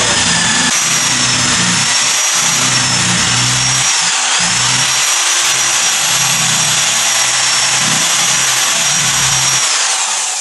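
Handheld power tool running continuously as its bit carves into a pumpkin, with a high motor whine that dips briefly about four seconds in and a rough, wavering grinding underneath.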